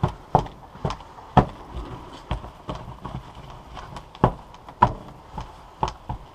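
Irregular knocks and taps, roughly two a second, as rubber skull castings are rubbed with a rag and pressed and shifted on the work table to wipe off the stain.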